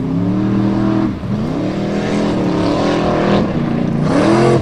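Formula Offroad race buggy's engine revving hard under throttle, its pitch climbing and dropping about three times as the driver lifts and gets back on the power, with a sharp dip about a second in.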